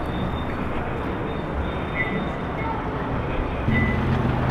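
Steady outdoor city background noise, with a low steady drone coming in suddenly near the end.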